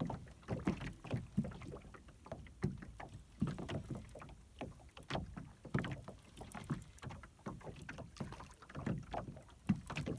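Small waves lapping and slapping against the hull of a small anchored boat, in irregular splashes and knocks.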